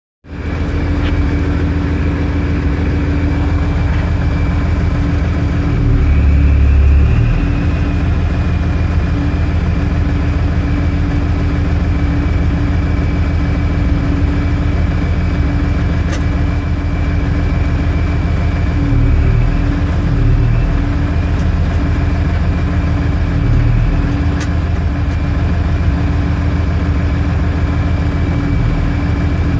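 Zetor 16145 tractor's diesel engine running steadily while it drives the hydraulics for a pressure test, with a thin steady high whine over the engine note. The engine note swells briefly about six seconds in, and a little again later.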